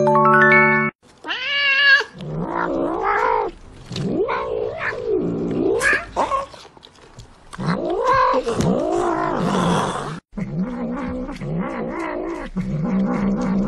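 Domestic cats meowing and yowling again and again, long arching calls that rise and fall in pitch, turning lower and more drawn-out after a sudden cut about ten seconds in. A short steady-toned chime sounds in the first second.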